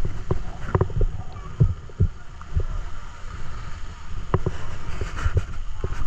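Wind buffeting the microphone: a gusty low rumble broken by irregular thumps and knocks.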